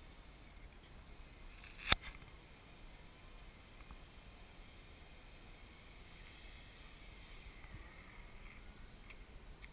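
Electric motor and propeller of a large RC Cessna 185 floatplane whining faintly as it flies over the water, the pitch falling near the end as it passes. A single sharp click about two seconds in is the loudest sound.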